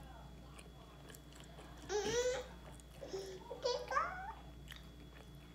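A toddler babbling in two high-pitched bursts, the louder one about two seconds in and a longer, wavering one about a second later.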